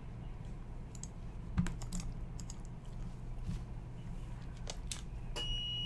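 Sparse typing and clicking on a computer keyboard over a low steady hum. Near the end a steady, high-pitched electronic beep starts.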